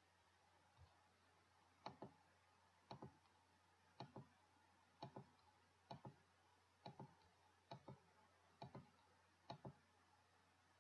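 Computer mouse button clicking about once a second, nine times from about two seconds in; each click is a quick double snap of press and release.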